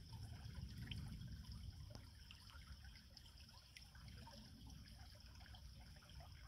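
Faint trickle of creek water under a low rumble.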